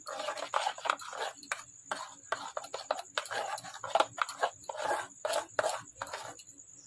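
Fingers mixing a thick gram-flour and cornflour batter in an aluminium bowl, with quick, uneven scraping strokes against the metal.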